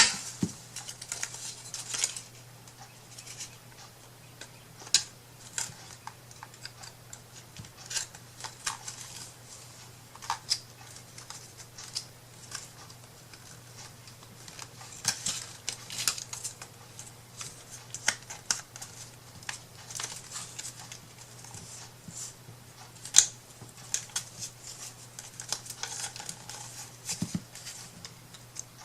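Scattered small clicks, taps and scrapes of hands working with craft tools and materials on a tabletop, irregular and light, over a faint steady hum.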